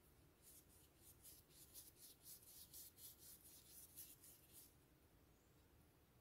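Flat paintbrush stroking wet paint across paper in quick back-and-forth strokes, faint, about four to five a second, stopping a little before five seconds in.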